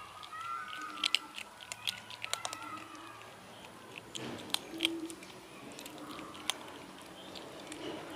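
Kittens chewing dry kibble: many quick, irregular crunches and clicks.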